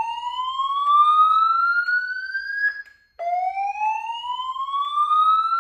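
EST2 whoop tone from EST Genesis voice-evacuation speaker strobes: slow rising whoops, one ending about three seconds in and the next starting right after a brief break. It is the alert tone that goes with the spoken evacuation message.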